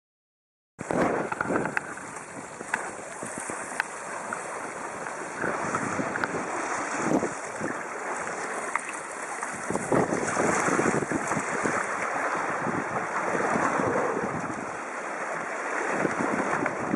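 Wind buffeting the microphone and waves rushing and splashing along the hull of a small sailboat under way, cutting in suddenly about a second in, with repeated surges of splashing.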